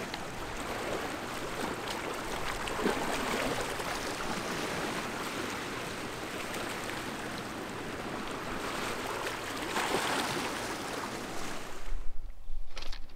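Steady rush of a fast river current flowing past the bank. About a second before the end the rushing drops away and only a few soft, irregular knocks are left.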